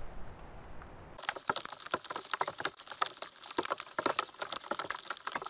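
Wet snow and meltwater drops pattering on a surface close to the microphone, a dense irregular run of small ticks. For about the first second there is instead a low wind rumble, which cuts off abruptly.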